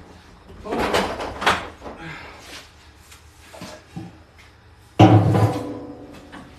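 Knocks and scraping of heavy garage gear being shifted about, then a sudden loud bang about five seconds in that rings on briefly.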